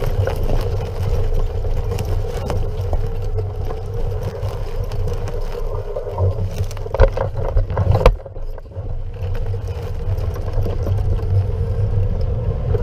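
Overvolt electric mountain bike ridden over a sandy dirt track: continuous tyre and wind rumble with a steady hum, and a few sharp knocks and rattles about seven to eight seconds in.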